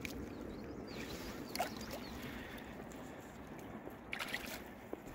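Shallow river water flowing and lapping along the bank, with a few small splashes: one about one and a half seconds in and a short cluster about four seconds in.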